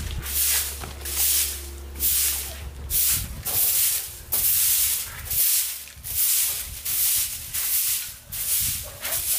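Broom of dried stalks sweeping a concrete floor in regular strokes, a scratchy swish a little more than once a second.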